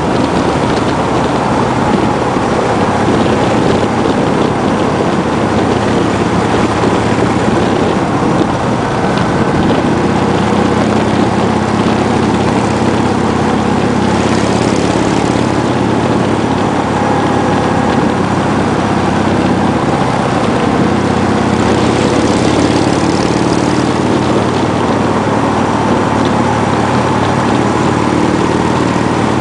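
Motorcycle engine running steadily at cruising speed through curves, with wind noise rushing over the microphone.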